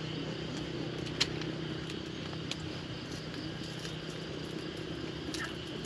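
Steady low engine hum of road traffic, with a few faint clicks over it.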